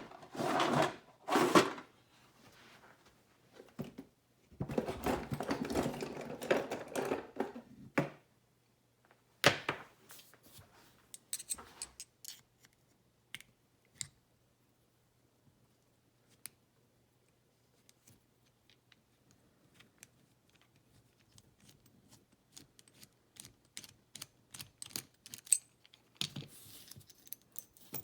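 Hand-tool handling while taking apart a padlock: a few seconds of rustling rummaging, then scattered small metallic clicks and taps that grow denser near the end, as a Phillips screwdriver and lock parts are worked.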